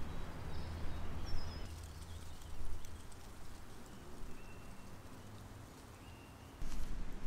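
Woodland ambience: a few brief, high bird chirps over a low rumble, with louder broad noise starting near the end.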